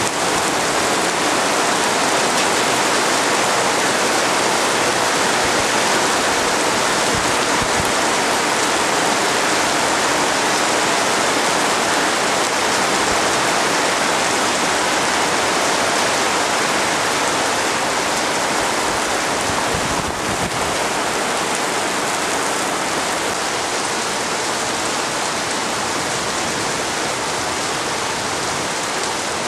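Steady rain falling, an even hiss with a slight dip in level about twenty seconds in.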